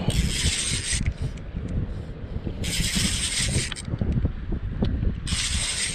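Spinning reel cranked fast in three bursts of about a second each, a bright whirring, with pauses between: the jerk-and-reel rhythm of a snag-fishing retrieve. Low wind rumble on the microphone throughout.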